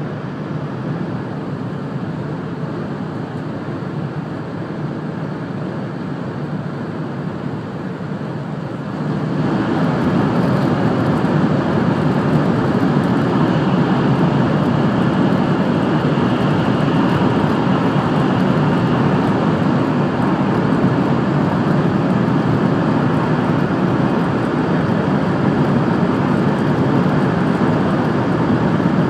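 Steady running noise of a 700 series Shinkansen heard from inside the passenger cabin at speed. About nine seconds in it turns suddenly louder and fuller as the train enters a tunnel, then holds steady.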